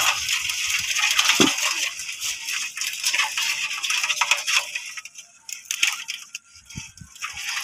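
Live freshwater crabs clicking and scraping against a metal basin with a little water in it as hands pick through them, a dense run of small clicks and light splashing that thins out about five seconds in.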